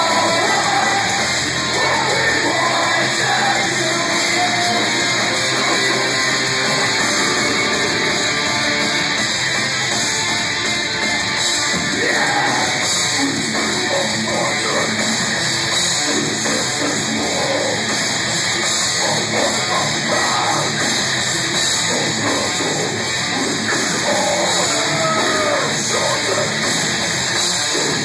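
Metalcore band playing live: loud, dense distorted electric guitars and a drum kit, continuous with no breaks.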